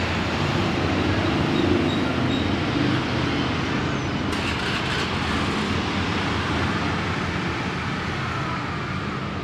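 Steady road traffic noise with a low engine rumble, swelling slightly about one to two seconds in as a vehicle passes.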